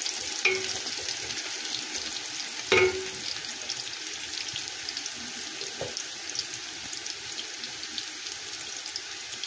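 Sliced onions frying in butter and mustard oil in an aluminium pot: a steady sizzle with fine crackling. A wooden spatula knocks against the pot about half a second in and again, louder, near three seconds.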